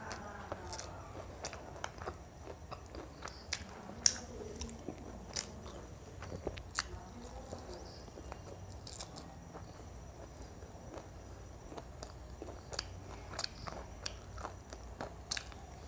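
Close-miked eating: a person biting and chewing fried chicken, with many short wet mouth clicks and smacks scattered throughout, the loudest about four seconds in.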